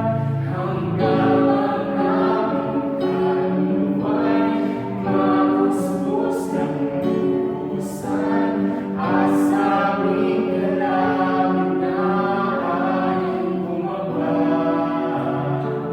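A choir singing a Christian worship song, with long held notes.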